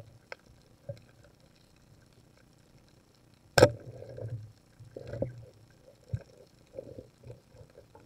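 Underwater, a rubber-powered pole spear is released with one sharp crack about three and a half seconds in, followed by low rumbling and scattered knocks from the spear and the diver's movement. Faint ticks sound throughout.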